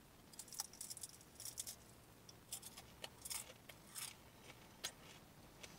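Faint, irregular crunching of a crisp sesame seed cracker (Ella's Flats) being chewed, with small sharp crackles a couple of times a second.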